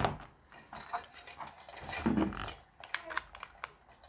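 Light metallic clicks, scrapes and clatter from a small metal mini USB desk fan being handled and worked at to force it open, with a duller knock about two seconds in.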